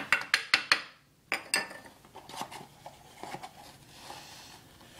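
Kitchenware clattering as it is handled: about five quick sharp taps in the first second, two more just after, then fainter scattered knocks.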